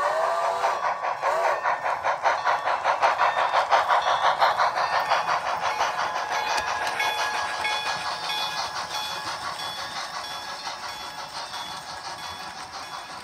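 Model train of two steam locomotives double-heading passenger cars, running past with a fast, even clicking and clatter from its wheels and running gear. The sound fades steadily as the train moves away.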